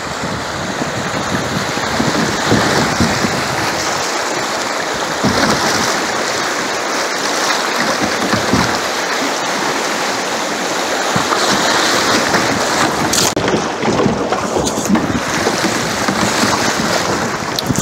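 Creek rapids rushing and splashing around a kayak running through them, a loud steady rush, with wind rumbling on the microphone.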